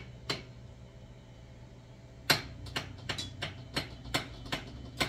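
A run of light clicks, about three a second, starting about two seconds in, over a low steady hum.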